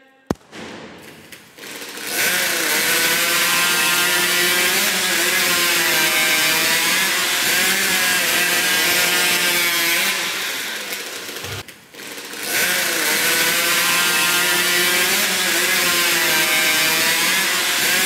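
Racing hot saw (a heavily modified high-powered chainsaw) running at full throttle as it cuts through a log, its engine note wavering under load. It starts about two seconds in and drops out briefly after about ten seconds before running again.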